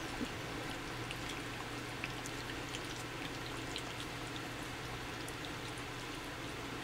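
Miniature dachshund puppies eating soft, wet rice cereal and puppy food, a faint patter of small wet lapping and smacking clicks over a low steady hum.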